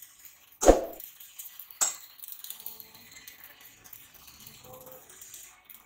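Two sharp metallic clangs about a second apart, metal striking metal, the first louder and ringing briefly.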